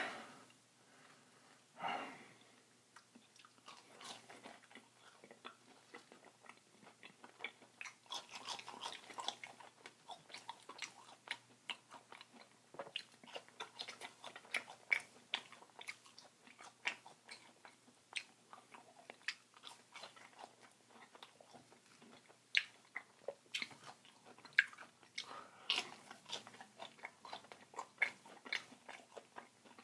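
A man biting and chewing food close to the microphone: a steady run of short, sharp mouth clicks and crunches, busier about a third of the way in and again near the end.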